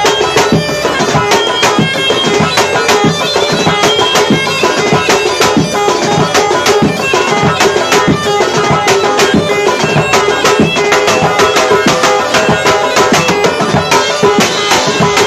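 Tunisian mezoued bagpipe playing over a fast hand-drum beat, live through a stage PA.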